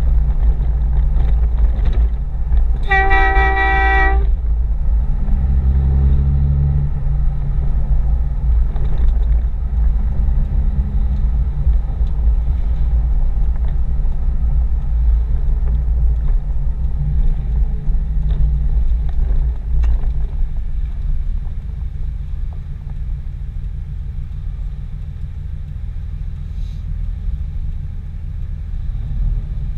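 A 5.9 L Cummins straight-six turbodiesel runs under way, heard from inside the pickup's cab, while the G56 six-speed manual is shifted, and the engine note changes with the gears. About three seconds in, a vehicle horn toots once for about a second.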